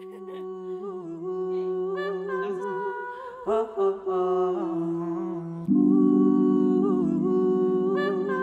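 A woman humming a wavering melody over sustained backing chords, the intro of a neo-soul/R&B song. About two-thirds of the way in, the backing chords become louder and fuller.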